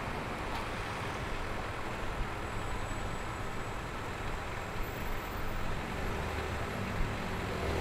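Steady low rumble of motor traffic and engine noise, without distinct events.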